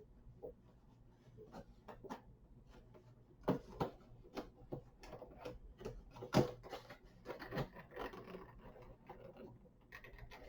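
Boxed action figure's packaging being handled and pried open: irregular clicks, taps and rustles, with a few louder knocks about three and a half and six and a half seconds in.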